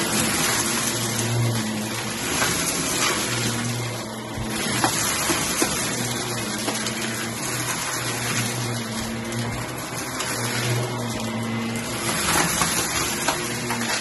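Shark upright vacuum running on carpet as it is pushed back and forth, its motor hum rising and falling a little with the strokes, with a few sharp clicks as bits of debris are sucked up.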